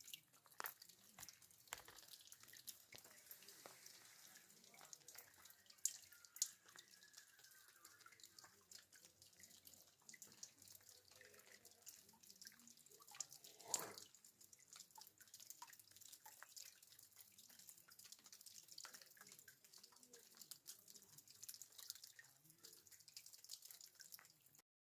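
Water dripping from rock: a faint, fast, irregular patter of small drops, with a few louder drips about six seconds in and near the middle. It cuts off suddenly just before the end.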